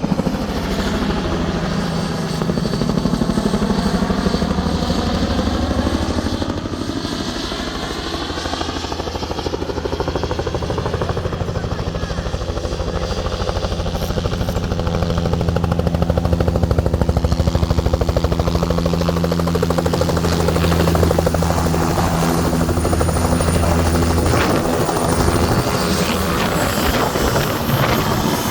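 Bell 505 Jet Ranger X helicopter running steadily: the low beat of the rotor over the Safran Arrius turboshaft engine, with a sweeping, phasing tone in the first few seconds.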